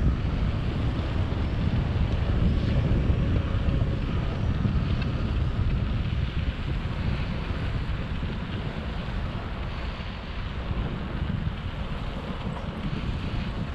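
Wind buffeting a GoPro HERO7 Black's microphone on a moving bicycle, a steady low rumble that eases slightly after the middle.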